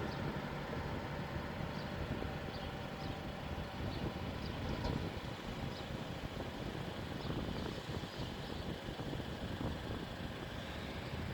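Engine of salt-harvesting machinery running steadily, with short high chirps now and then.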